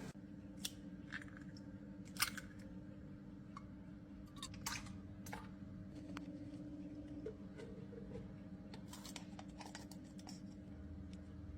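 Scattered light clicks and taps of kitchen utensils and dishes being handled, over a steady low hum; the sharpest click comes a little over two seconds in.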